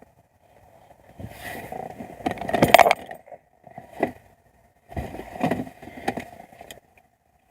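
Hand tools and metal parts clinking, rattling and scraping in several short bouts, the loudest clatter a little under three seconds in.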